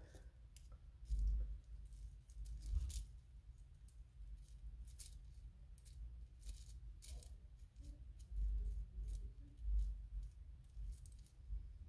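Small knitting progress keepers (charm stitch markers) clicking and ticking as they are fiddled with and fastened by hand, in scattered sharp clicks, with a few soft low handling thumps.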